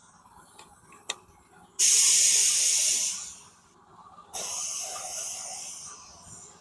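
Clear coat being sprayed onto the repaired wheel in two passes: a loud hiss of about a second and a half, then a second, fainter hiss of similar length. A single small click comes about a second in.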